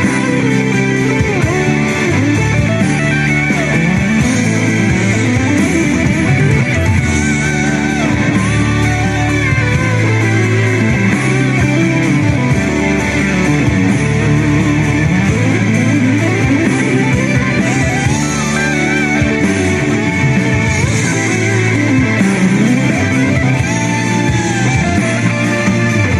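Instrumental rock music: an electric guitar plays a melody with bending, gliding notes over bass and backing parts.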